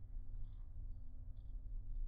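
Steady low rumble with a faint constant hum inside an Airbus A330 airliner cabin, typical of the aircraft taxiing after landing.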